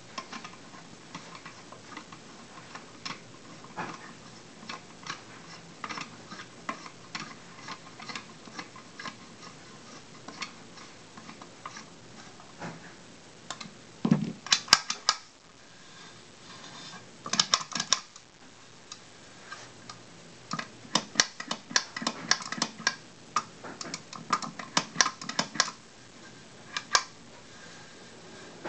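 Small metal clicks and ticks as a screwdriver drives screws into a storm door pull handle on an aluminium door stile, with louder clusters of clattering clicks from the handle and latch hardware being fitted, around the middle and in the last third.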